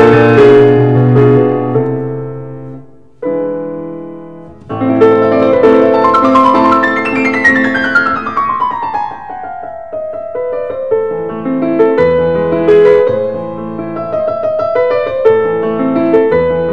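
Background solo piano music, with a falling run of notes in the middle and a brief lull about three to five seconds in.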